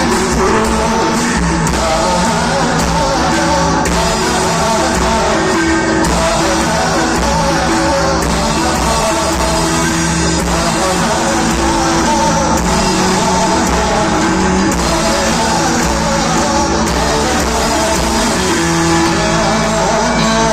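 Live rock band playing a song with a singer, with guitars and vocals over a steady full band sound, during a sound check.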